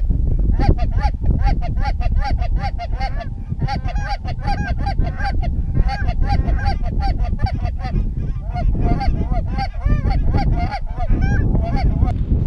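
Goose honking: a quick, loud run of short honks and clucks, several a second, with brief lulls, over low wind rumble on the microphone.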